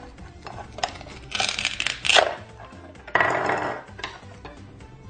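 Velcro-joined toy pineapple being cut with a plastic toy knife: two rasping velcro rips as the pieces pull apart, about a second and a half in and again about three seconds in, with a few light taps of plastic pieces on the cutting board. Faint background music underneath.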